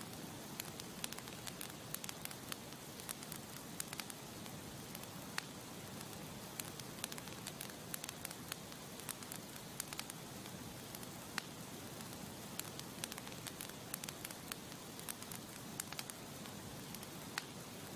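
Campfire burning, the wood crackling with frequent irregular sharp pops over a steady hiss.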